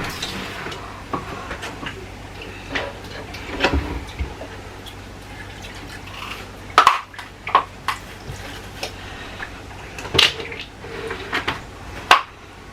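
Kitchen handling sounds: scattered clinks and knocks of dishes and utensils, with louder knocks about seven, ten and twelve seconds in.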